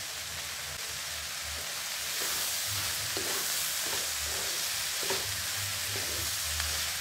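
Shallots, chillies and chopped tomatoes sizzling in hot oil in a non-stick wok while a wooden spatula stirs and scrapes through them. The sizzle is a steady hiss that grows a little louder about two seconds in.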